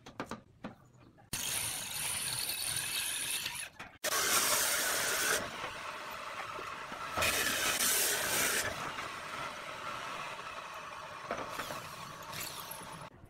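Hand-held power drill boring into a roof tile in two runs: a short one and then a longer, louder one that rises and falls.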